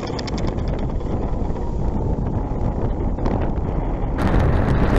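Wind rushing over the onboard camera microphone of a low-flying RC model plane, with its motor and propeller running steadily underneath. About four seconds in the rush grows louder and brighter.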